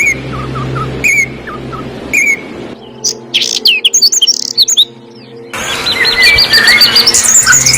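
Songbirds calling: a short call with a falling tail repeated about once a second, then a quick burst of high chirps, and from just past the middle a fast, even trill with other chirps over it.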